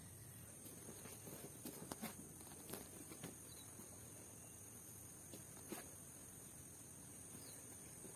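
Near silence: a faint steady high hiss, with a few soft footsteps on an earth floor. The diesel engine and huller are not running.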